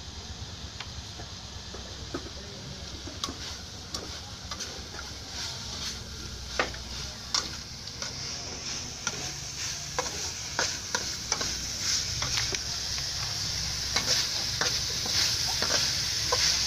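Metal spatula scraping and clinking against a steel wok as food is stir-fried, over a steady sizzle of frying that gets louder about halfway through.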